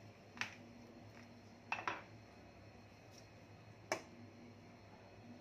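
About four light knocks and clatters as squeezed orange peels are handled and set down on a steel plate, with a close pair in the middle and the sharpest one near the end.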